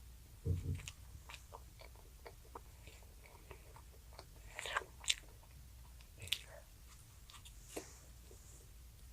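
A child chewing food close to the microphone, with small mouth clicks and smacks scattered throughout. A soft low thump comes about half a second in.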